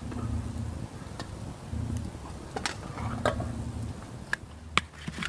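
Handling noise from a drawstring mesh stuff sack being opened, with a few sharp light clicks that come closer together near the end, over a low uneven rumble.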